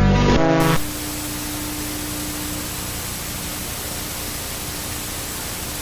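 Music cuts off abruptly under a second in and gives way to steady, loud static hiss. A faint low hum lingers under the static for a couple of seconds.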